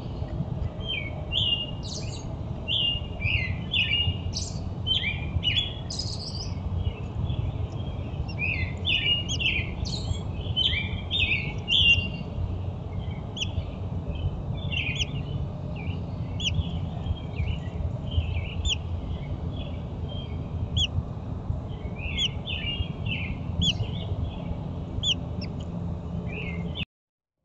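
Birds chirping: many short, quick chirps, thickest over the first dozen seconds and sparser after, over a steady low background rumble.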